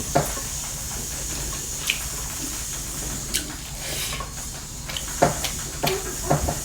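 Someone eating a meal: scattered soft clicks and smacks of chewing and handling food on a plate, at irregular intervals over a steady faint hiss.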